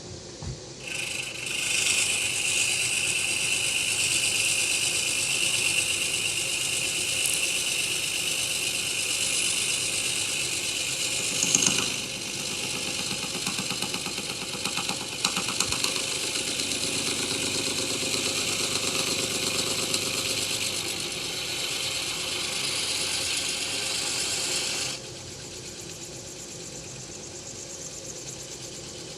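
Milling machine spindle turning an annular cutter at slow speed as it cuts a notch, a steady grinding hiss that starts about a second in and drops away about 25 seconds in, with one louder knock near the middle.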